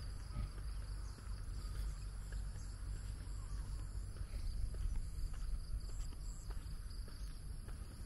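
Wind buffeting the microphone as a low, uneven rumble, over steady high-pitched insects calling and a few short chirps.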